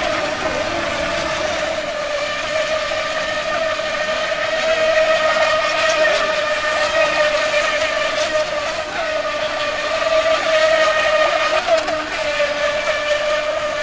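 Feilun FT009 RC racing boat's electric motor running at speed with a steady high-pitched whine that wavers slightly as the boat turns circles on the water.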